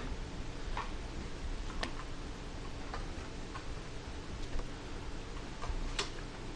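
Quiet room tone with steady hiss and hum, and a few faint, sharp ticks and taps at uneven intervals, the clearest at about two seconds in and near the end.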